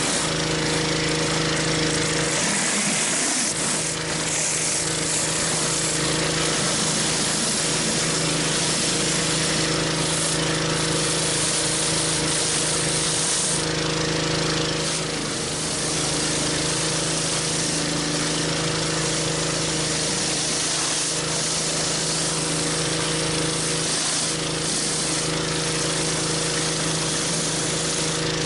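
Pressure washer running at a steady pitch while a 14-inch BE Whirl-a-Way surface cleaner is pushed over concrete, its spinning water jets spraying with a constant hiss.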